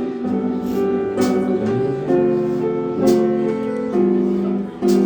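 Jazz guitar and piano playing a slow ballad, sustained chords changing every second or so between sung phrases.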